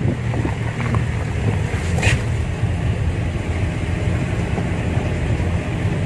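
Small shuttle vehicle (multicab) engine running with a steady low rumble while driving, with wind noise on the microphone. A single sharp click about two seconds in.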